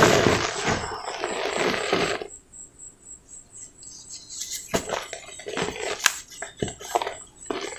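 Handfuls of dry cement powder falling back into a basin, a dense dusty pour that runs for about two seconds. After a short lull, dry crackling and crunching as a lump of cement is crushed between the fingers.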